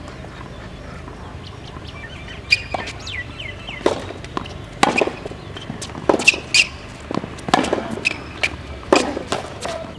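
Tennis rally on a hard court: a run of sharp, irregularly spaced pops from the ball striking the racket strings and bouncing on the court, starting about two and a half seconds in, mixed with short high squeaks.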